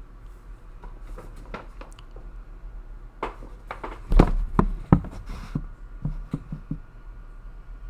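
Handling noise from things being moved on a table: scattered light knocks and taps, with two louder thumps about four and five seconds in.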